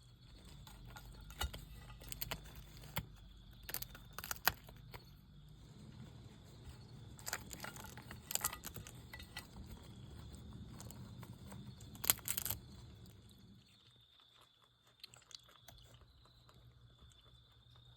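Two skunks chewing crunchy food: irregular sharp crunches in small clusters, the loudest about twelve seconds in, growing sparse and faint over the last few seconds.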